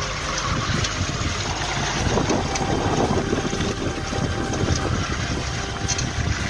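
Water rushing and splashing along the hull of a small boat under way, with wind buffeting the microphone; the splashing swells for a couple of seconds in the middle.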